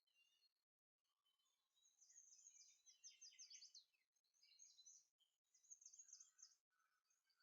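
Faint birdsong: quick high chirps and fast trills in short bursts, with brief complete dropouts between them.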